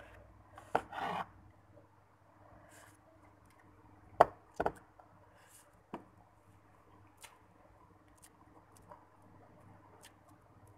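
Eating instant noodles: a plastic fork scraping and clicking against a ceramic bowl, with quiet chewing. A short scrape about a second in, a few sharp clicks around four to six seconds in, then faint ticks.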